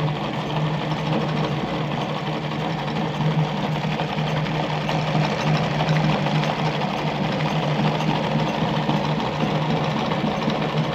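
Singer 319K zigzag sewing machine running steadily, stitching one of its built-in zigzag cam patterns, with a steady low motor hum.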